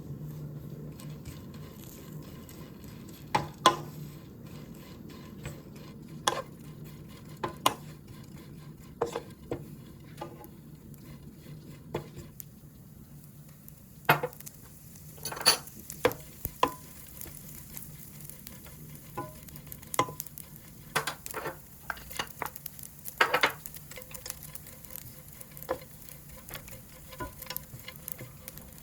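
Small dried anchovies stir-fried in oil in a pan: a faint steady sizzle broken by irregular sharp clicks and scrapes of the spatula against the pan as it stirs.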